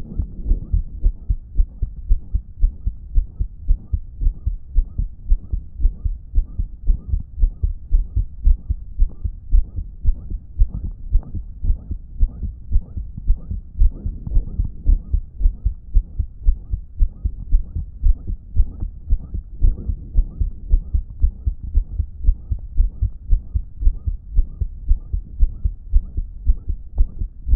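Human heartbeat in a steady, even rhythm, with a loud blowing murmur between the beats. It comes from a damaged heart that, in its owner's words, wasn't pumping effectively.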